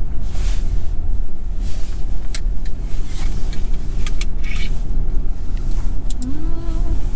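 Inside a car towing a caravan: a steady low rumble of engine and tyre noise as it drives along, with a few light clicks and knocks. A short hummed voice sound comes in near the end.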